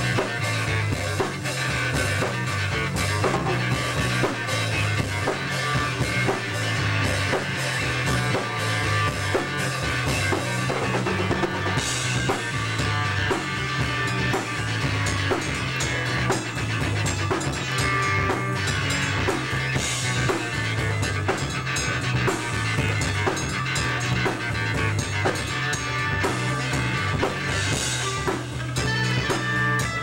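A small band playing an instrumental rock jam: acoustic guitar, keyboard and a drum kit keeping a steady beat, with a cymbal crash about every eight seconds.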